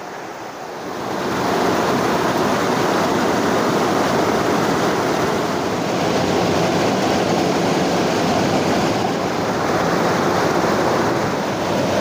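Waterfall and river rapids rushing: a steady, loud wash of falling and flowing water that swells in about a second in.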